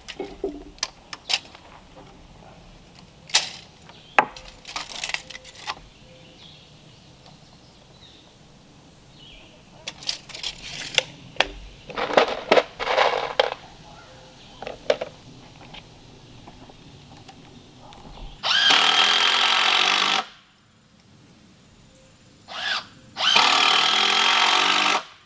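Cordless drill driving screws into 2x4 lumber in two long runs, one about 18 seconds in and one near the end, with a short burst between them. Before that, scattered clicks and the clatter of screws being picked from a plastic box.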